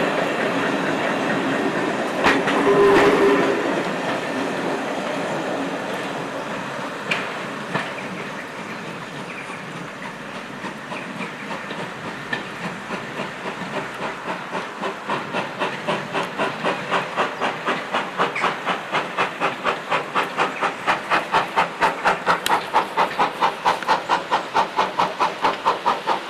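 Steam locomotive hissing steam, then a regular beat of chuffs or wheel beats that starts slow and gets steadily faster and louder, reaching about three a second near the end as the train gets under way.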